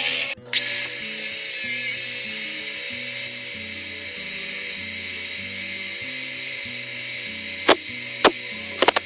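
Background music with a steady stepping bass line, over the high, steady hiss and whine of a lathe cutting metal. There is a brief break about half a second in, and a few sharp clicks near the end.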